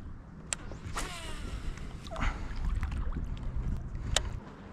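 Steady low wind-and-water rumble around a small fishing boat, with a few sharp clicks and a couple of short chirping calls.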